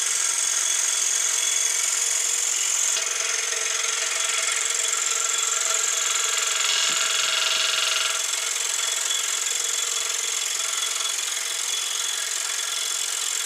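A DeWalt DW788 variable-speed scroll saw running at a low blade speed, its blade cutting through 3/4-inch walnut with a steady buzzing rasp. The sound eases a little about halfway through.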